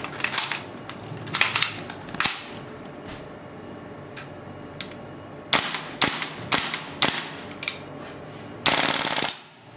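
AGM M4A1 gas blowback airsoft rifle firing: sharp single shots with gaps between them, then a short rapid full-auto burst near the end.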